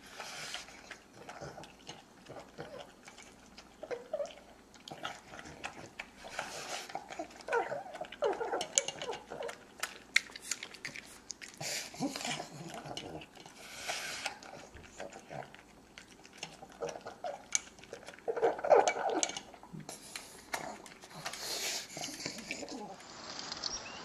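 Pug eating dry kibble from a stainless-steel bowl: irregular crunching and chomping, clicks against the metal bowl, and short snuffling grunts, most intense about three quarters of the way in.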